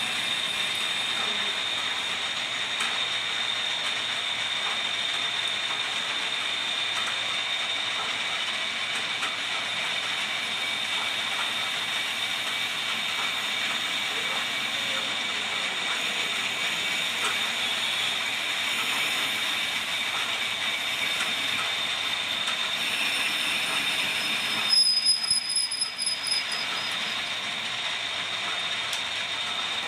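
Metal lathe running steadily, its gearing rattling under a constant high whine. Near the end a louder high squeal rises for about two seconds.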